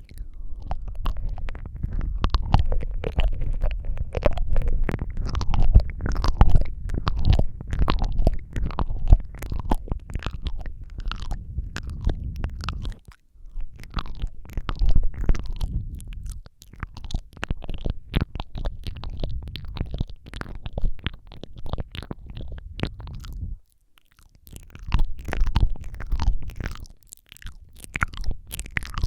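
ASMR mouth sounds close to a microphone: rapid wet clicks and smacks of lips and tongue, with a deep rumble underneath, coming in long runs broken by a few short pauses.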